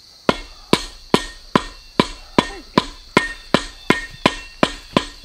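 A folding camp shovel beating on the top of a forked wooden stake, driving it into the ground: about thirteen steady strikes, roughly two and a half a second, each with a short metallic ring.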